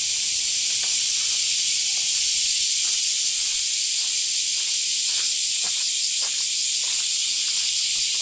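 A loud, steady, high hiss that does not change at all, over faint footsteps of someone walking.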